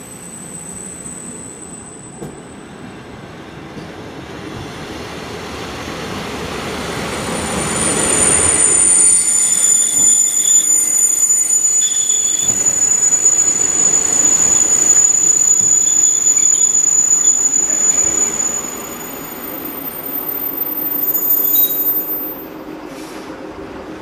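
Train running through the station, its rumble growing louder over the first several seconds. A high, steady metallic squeal rides over the loudest stretch, then the sound dips, swells once more and falls away near the end.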